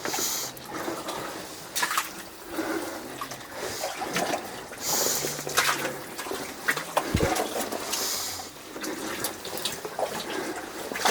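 Legs wading through deep mud and water, sloshing and splashing irregularly, with louder surges at the start, about five seconds in and about eight seconds in.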